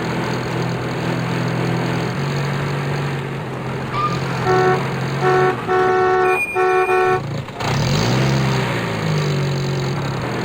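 Truck engine running at a steady idle while the horn gives about five toots near the middle, the later toots longer. The engine sound then cuts out briefly and returns with its pitch sweeping up and down, like a rev.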